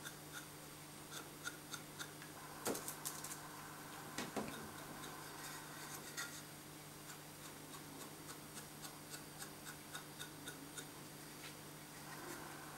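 Faint soft taps and ticks over a low steady hum, from a small sponge dabbing paint onto a thin wooden card, with two slightly louder knocks about three and four seconds in.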